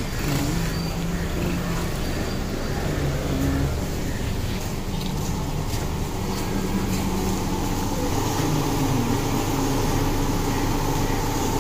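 Car engine running at idle as the car creeps slowly forward, a steady low hum.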